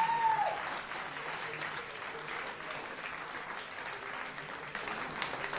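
Audience applauding steadily, with a short rising-and-falling call from the crowd right at the start.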